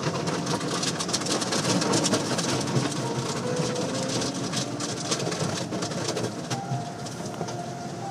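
Soft-cloth strips of an automatic car wash slapping and scrubbing over the car's windshield and body, heard from inside the car: a busy, continuous run of many quick slaps over a rumble and water spray.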